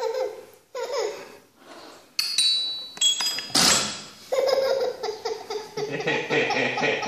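Toddler laughing and squealing in bursts, with a small rubber balloon buzzing as air is let out through its neck.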